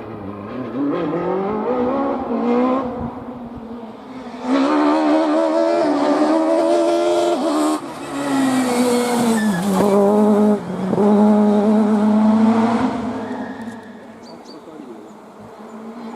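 Peugeot 306 Maxi rally car's naturally aspirated four-cylinder engine revving hard, its pitch climbing through the gears, with sudden drops in pitch at the shifts and lifts. It gets much louder about four seconds in as the car comes close, and fades away near the end.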